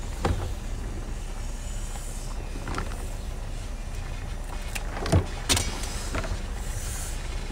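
Scissors snipping and cracking through cooked king crab leg shell: a few short sharp cracks, the loudest two close together about five seconds in, over a steady low rumble.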